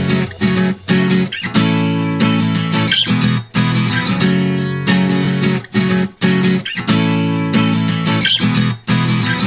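Background music led by strummed acoustic guitar, with chords that change about every second.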